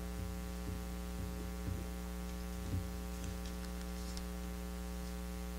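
Steady electrical mains hum with a buzzy edge, with a couple of faint soft knocks about two and three seconds in.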